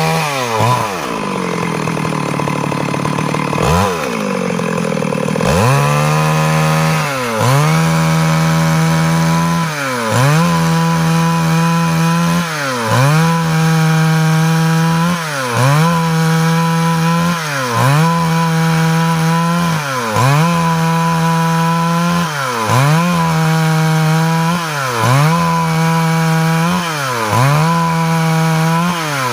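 Stihl MS 382 two-stroke chainsaw running at high revs while cutting wood. In the first few seconds the engine slows down and revs back up twice. After that its pitch dips briefly and climbs back about every two and a half seconds.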